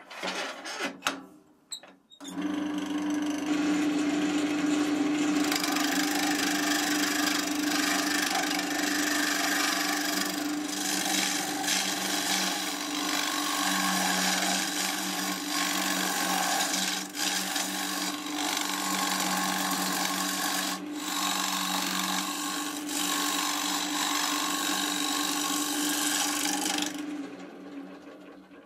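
Wood lathe starting about two seconds in and spinning an ash bowl blank, its motor humming steadily under the hiss and chatter of a turning tool cutting into the end grain, with a few sharp knocks along the way. Near the end the cutting stops and the lathe winds down.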